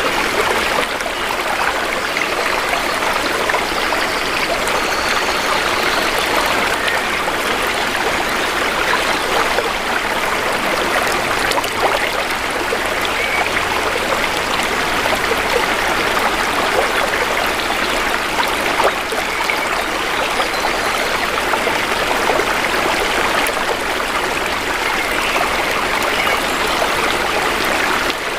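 Shallow river or stream flowing steadily over stones, a constant rushing babble dotted with small splashes.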